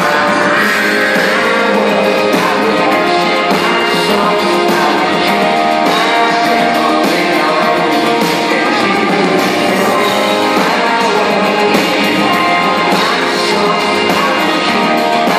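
Live band playing, a woman singing lead over keyboards and band. The mix is loud and steady, with little bass.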